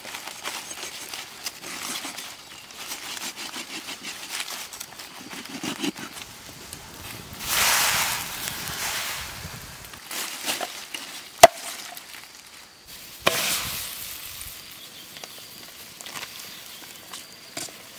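A cleaver chopping on a wooden chopping board, then water sloshing and splashing in a wok as a whole raw chicken is put in, about halfway through. After that come two sharp knocks, the first very loud.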